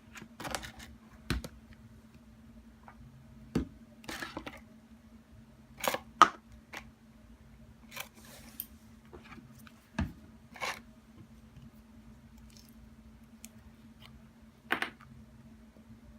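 Scattered clicks, knocks and brief rustles of small objects being handled, about ten in all, the sharpest about six seconds in, over a steady low hum.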